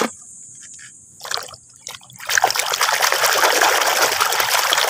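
Water splashing and trickling over a plastic toy vehicle as it is rinsed clean of mud: a few short splashes, then a steady pour from about two seconds in.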